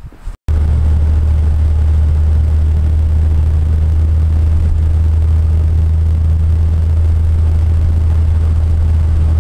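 Steady, loud low drone of a car running, beginning abruptly about half a second in.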